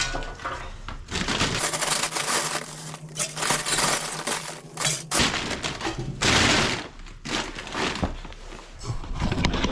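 Small coal being shovelled with a scoop into the firebox of a wood-burning stove: scraping and clattering in several noisy bursts as the scoops are filled and tipped in.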